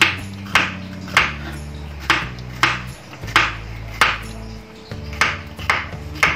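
A chef's knife slicing through bitter gourd onto a wooden cutting board in a steady rhythm of sharp crunchy chops, about two a second, over soft background music.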